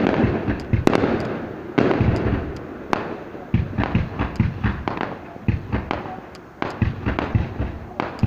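Fireworks display going off: a rapid, irregular string of bangs and crackles, with heavier bangs about one, two and three seconds in.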